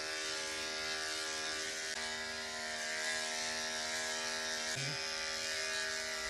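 Corded electric dog clippers with a 5/8-inch guard comb running steadily as they clip the hair on a dog's muzzle, chin and cheeks: a constant motor hum with a hiss over it.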